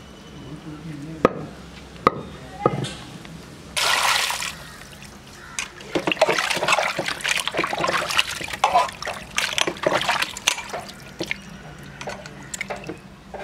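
A few sharp cleaver chops on a wooden board in the first seconds, then hands swishing and squeezing cut country-chicken pieces in a metal pot of water, with splashing and dripping as the meat is washed.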